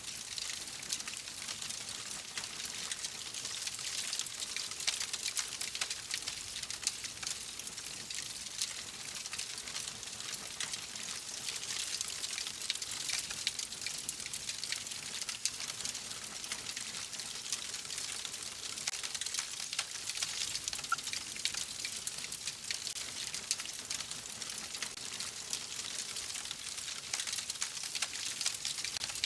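Wood fire burning in a fireplace: a steady hiss with dense, continuous crackling and snapping of the logs.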